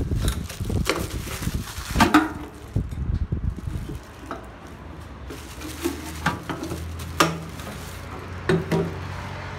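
Olive-green steel ammunition box being turned over and handled: scattered metal knocks and clanks, with scraping and handling noise in the first few seconds.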